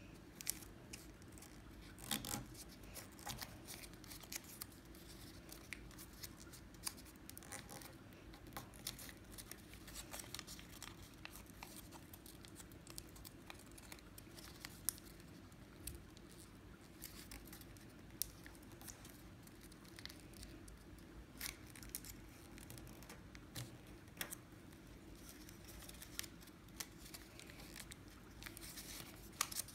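Origami paper being folded and creased by hand: faint, scattered rustles and crisp crinkles, over a low steady hum.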